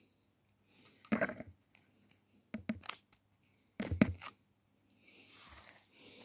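Pliers and fingers working the brass wire on a bassoon reed blank: two short crunching scrapes about a second in and about four seconds in, a few sharp clicks between them, and a soft rustle near the end.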